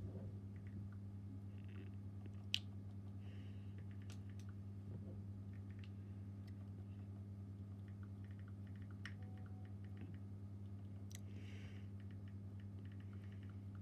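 Faint, scattered taps and clicks of fingers typing on a smartphone touchscreen keyboard, with one sharper click about two and a half seconds in, over a steady low hum.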